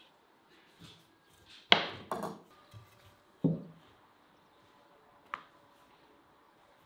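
A long wooden rolling pin knocking on a wooden pastry board: three knocks in the first half, the first the loudest, and a light click later on.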